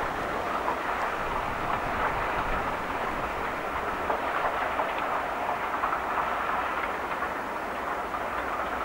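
Passenger coaches of a steam-hauled train rolling past on the rails: a steady rush of wheels on track with light clicks.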